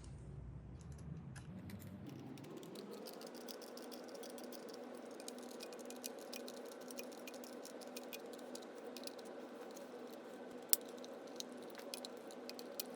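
Small irregular clicks and light rattling of a screwdriver driving Torx screws into a Dyson V10 housing. A steady faint hum comes in about two seconds in, and one sharper click stands out near the end.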